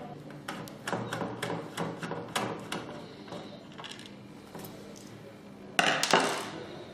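Small clicks and clinks of a flat screwdriver and small screws working on an access-control controller's plastic housing, with a louder clatter about six seconds in as the parts are handled.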